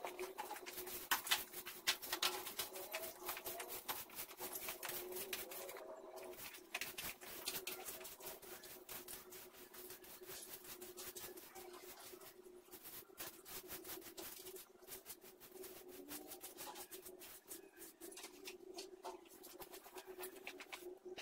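Broom bristles brushing and scratching across a tiled floor in quick, irregular strokes, over a steady low hum.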